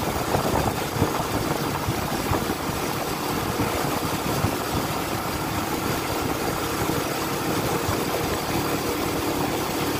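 Vehicle engine running steadily while on the move, with steady wind and road noise.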